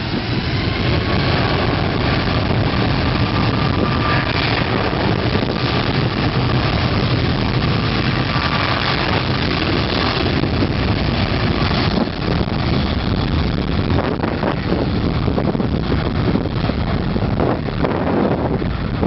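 Boeing 777's twin turbofan jet engines at takeoff thrust during the takeoff roll, a loud steady rumble with a faint whine over it in the first half.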